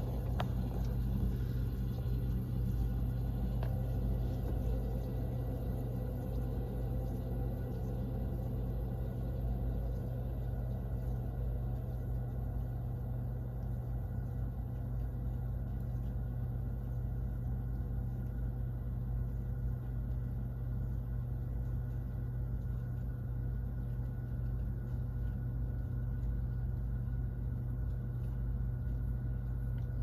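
Whirlpool refrigerator running: a steady low hum with no change.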